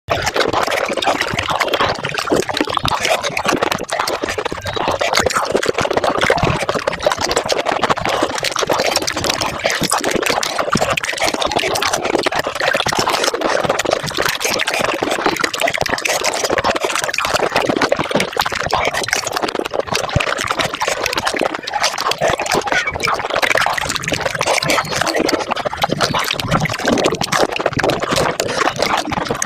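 Pani puri eating sounds sped up five times: crisp puri shells crunching and the filling water slurping run together into a continuous wet crackle.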